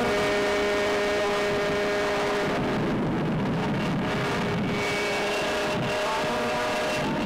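Jet engine noise on an aircraft carrier's flight deck: a steady high turbine whine, with a rougher rushing noise that swells for about two seconds in the middle.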